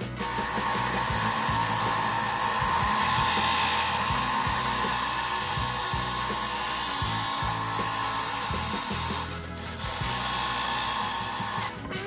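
Vertical band saw cutting a sheet-steel patch panel, the blade rasping steadily through the metal. The cut breaks off briefly about nine and a half seconds in, resumes, then stops near the end.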